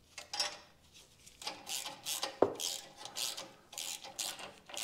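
Hand ratchet clicking in short back-and-forth strokes as an exhaust hanger nut is run down, with one sharp metallic clink about halfway through.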